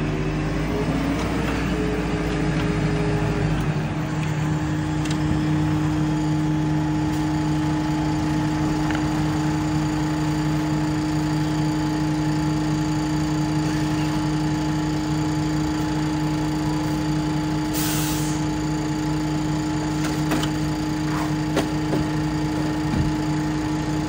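An engine idling steadily, a constant hum, with a brief hiss about three-quarters of the way through.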